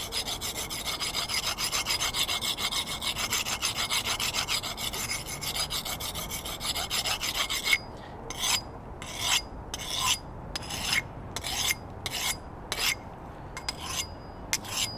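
Hatchet blade being honed on a fine sharpening stone, the other side of the edge now. Fast back-and-forth scraping strokes run for about eight seconds, then give way to slower separate strokes, a little under two a second.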